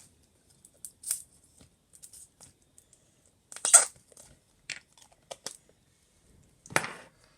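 Homemade black slime with small beads being stretched and handled: scattered small clicks and crackles, with two louder, longer sounds about four seconds in and near the end.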